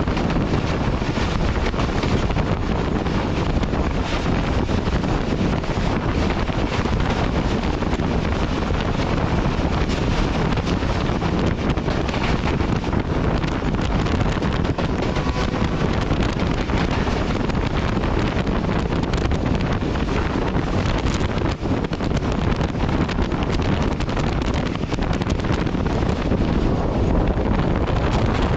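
Steady, heavy wind buffeting on the microphone, held out of the window of a moving passenger train, over the train's continuous running noise.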